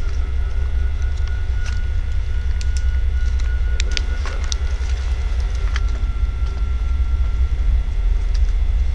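Steady low rumble on the microphone, with a faint steady high tone and a few sharp clicks scattered through the middle.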